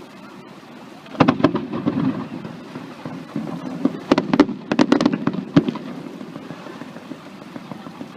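Aerial fireworks bursting: a quick run of sharp bangs and crackles about a second in, then a second, louder cluster of bangs from about four to five and a half seconds, with a steady rumble between.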